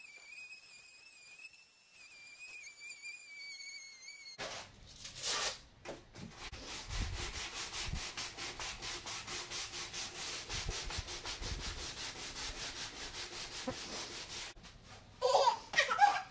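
Orbital sander working the wooden frame: first a thin, wavering whine, then, about four seconds in, a louder rasping hiss with a fast, even pulse as the pad sands the boards. It stops near the end, where children's voices take over.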